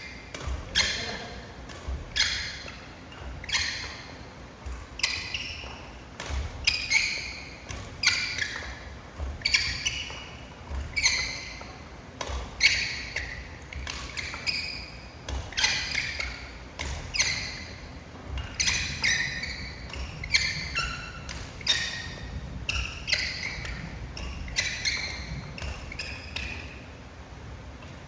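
Badminton rackets striking shuttlecocks in a push drill, a hit roughly every second and a bit in a steady rhythm, each with a short high squeak that falls in pitch.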